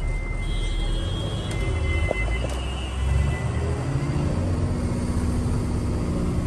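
Truck engine running and road noise heard inside the cab while driving, a steady low rumble.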